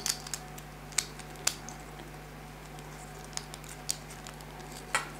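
Clear plastic Gunpla parts clicking and tapping as they are handled and pushed together, about half a dozen sharp clicks at irregular moments, the loudest near the start, a second in and near the end, over a faint steady low hum.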